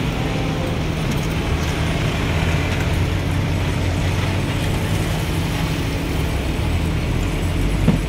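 A heavy engine runs steadily with a low rumble, amid general traffic noise. There is a short knock near the end.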